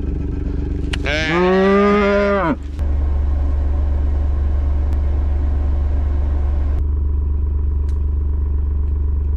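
A cow moos once, a long call rising and then falling in pitch, about a second in. Under it a vehicle engine runs with a steady low drone, louder after the moo.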